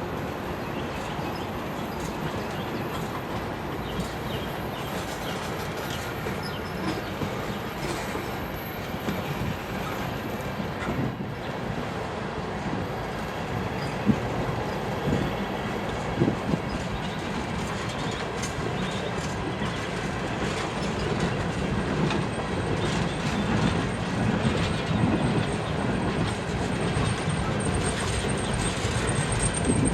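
Freight train cars rolling on the rails during switching, wheels clicking over rail joints with a faint wheel squeal. The sound grows louder in the second half.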